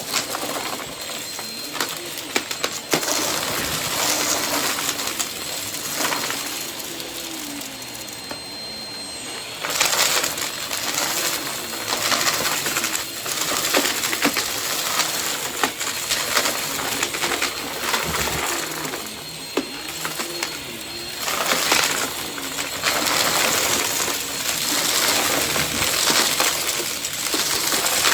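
Vacuum cleaner running continuously, its sound shifting in level several times as it is worked over the floor, with crackles and rattles of debris being sucked up.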